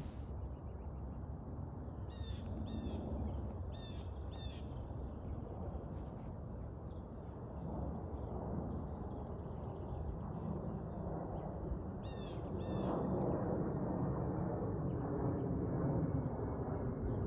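A bird calling in short paired notes, three times, over a steady low outdoor rumble that grows louder in the last few seconds.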